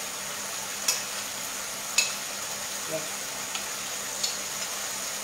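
Fish fillets frying in a hot pan, a steady sizzle, with a few light clicks of utensils against a plate about one, two and four seconds in.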